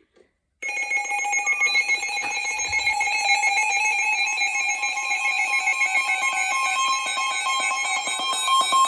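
Emergency alert attention tone from a radio: a loud, steady alarm of several pitches sounding together with a fast flutter, starting abruptly about half a second in. It signals that an emergency alert, here a National Weather Service flash flood warning, is about to be read.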